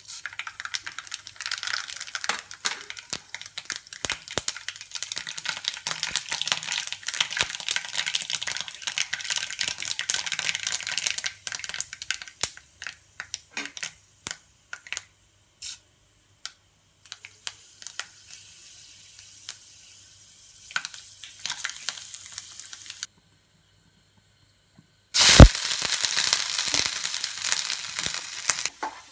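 Hot oil crackling and spitting in a nonstick wok, dense at first and then thinning to scattered pops. Near the end a thump and a sudden loud sizzle as dried red chillies and crushed ginger and garlic go into the hot oil and start frying.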